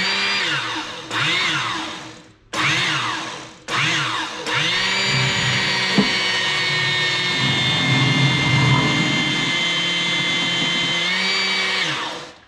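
Motor-driven hydraulic pump of a shop press whining as it drives the ram down to press a wheel out of a tire with a run-flat insert. It runs in three short bursts, each rising and falling in pitch, then runs steadily for about seven seconds with one sharp click along the way, and stops as the ram reaches the end of its stroke.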